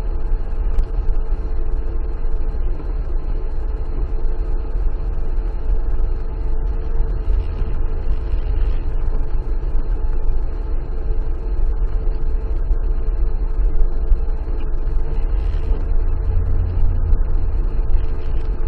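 Car engine running and tyres rolling over a rough dirt road, heard from inside the cabin: a steady low rumble with scattered small knocks and ticks.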